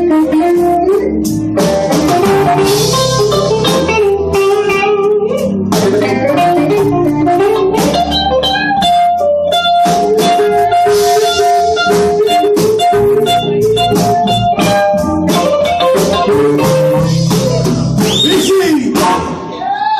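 Slow blues played live by a band: a pedal steel guitar lead with long held, sliding notes over drums.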